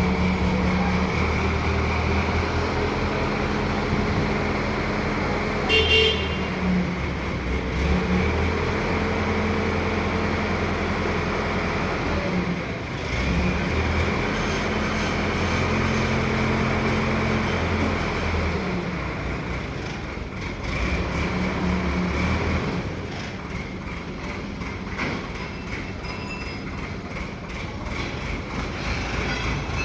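Heavy diesel engine of a mobile crane running, its pitch stepping up and down as the revs change, easing off in the last third. A short, loud, high-pitched sound cuts in about six seconds in.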